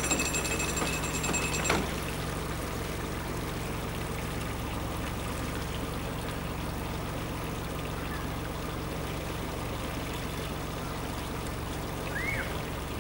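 A narrowboat's engine running with a steady low hum, while water trickles and splashes.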